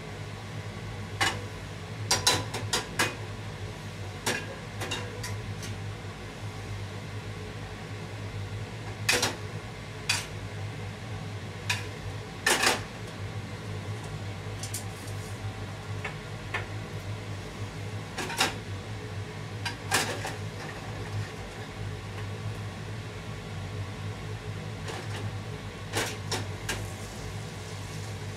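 A frying pan clacking and knocking lightly against a gas hob's pan grate at irregular intervals as it is set down and swirled to melt butter, over a steady low hum.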